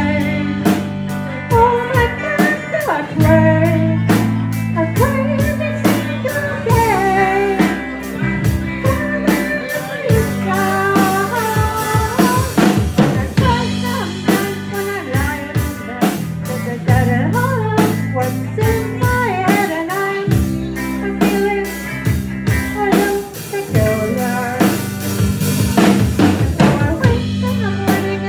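Live band playing: a drum kit keeps a steady beat under sustained bass notes and a bending lead melody line.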